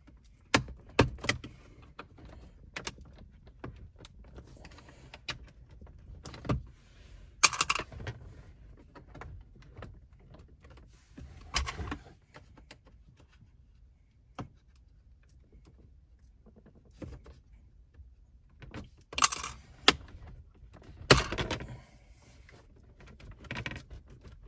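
Plastic centre-console trim of a 2015 Acura TLX being pried loose with a small pry tool and by hand. It gives scattered sharp clicks, knocks and snaps as the panel and its clips come free, with quiet stretches between.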